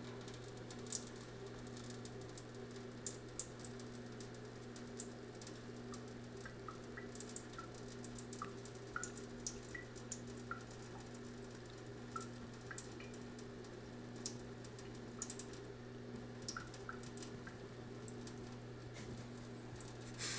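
Kitchen faucet water falling into the sink, with irregular drips, splashes and little plinks as a cat bats at the stream.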